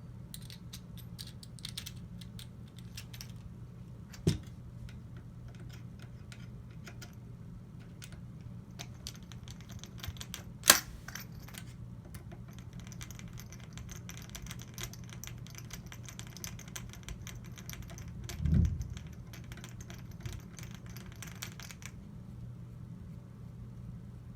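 Metal parts of a .22 rifle and tools being handled during disassembly: many small scattered clicks and clinks, a sharp click about ten seconds in, and two dull thumps, about four and about eighteen seconds in. A steady low hum runs underneath.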